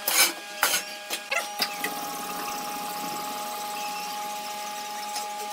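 Wood lathe running with a steady hum, with several sharp knocks in the first second and a half.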